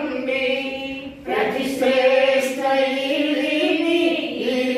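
Group of voices singing together in long, held notes, with a short break for breath about a second in.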